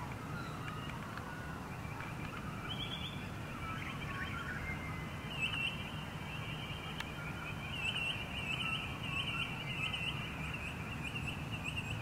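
Dawn bird chorus of distant birds calling, with runs of quick, high repeated chirps recurring through it over a steady low background.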